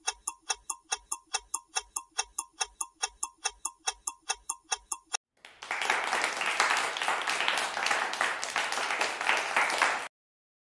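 Quiz countdown sound effect: a clock ticking at about four ticks a second for about five seconds. Then a burst of recorded applause for about four and a half seconds as the answer is revealed, cutting off suddenly.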